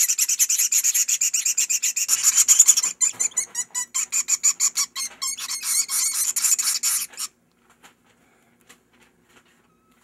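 Chimney swift nestlings giving their harsh, rasping begging chatter while being hand-fed, a rapid train of about ten raspy pulses a second that stops abruptly about seven seconds in.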